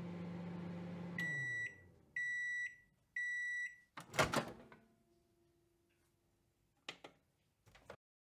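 Microwave oven finishing its cycle: the running hum winds down about a second in, then three beeps of the done signal a second apart, followed by a sharp clunk and two small clicks near the end.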